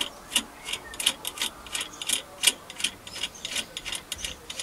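Drawbar nut being done up by hand at the back of a Myford ML7 lathe's headstock spindle, with a light, fairly even clicking about three to four times a second.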